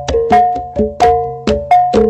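Outro background music: a melody of struck notes that fade quickly, about three a second, over a steady low tone.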